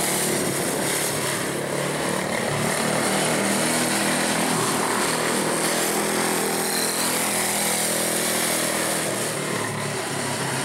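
Quarter midget race car's small single-cylinder engine running on a slow lap, its buzzy note rising and falling a little as the car goes around.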